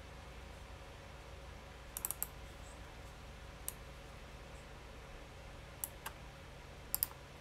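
Scattered sharp clicks from someone working a computer: a quick cluster of three or four about two seconds in, then single clicks and pairs, over a faint steady hum.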